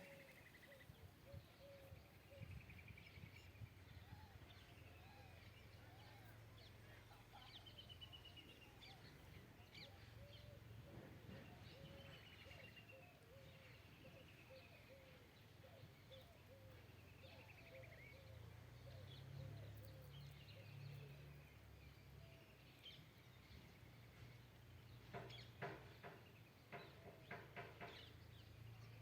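Faint chorus of several wild birds calling together, with repeated falling trilled chirps and a steady string of short lower notes. A burst of sharper, quicker calls comes near the end, over a low steady hum.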